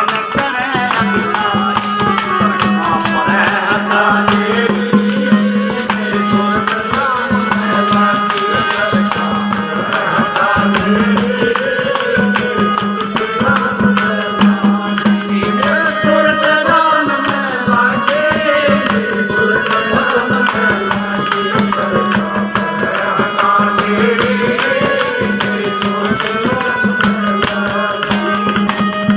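Devotional folk bhajan music: a wavering melody over a steady drone note, with rattling hand percussion and drums keeping a fast beat.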